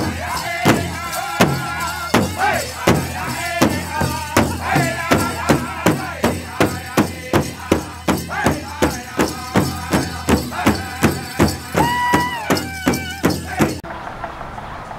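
Background music: a Mexican corrido tumbado song in an instrumental stretch, with plucked acoustic guitars and bass picking a steady rhythm of about three strokes a second. A held high note comes in near the end, and the music cuts off suddenly about a second before the end.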